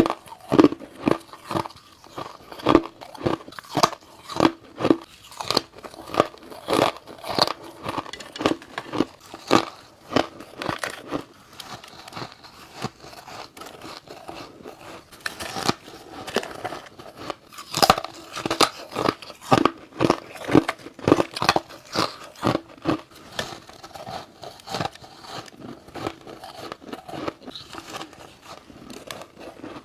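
Close-miked bites and chewing of freezer frost and thin humidifier frost: rapid crisp, crunchy, squeaky crunches, about two to three a second.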